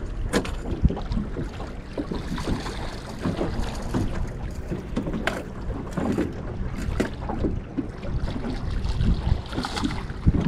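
Wind buffeting the microphone and water lapping against a small aluminium boat's hull, with a few sharp knocks.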